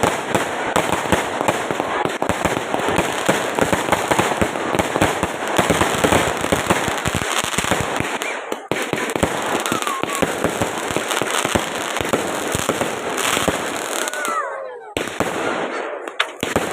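Fireworks going off in a dense, continuous barrage of bangs and crackles, thinning briefly near the end.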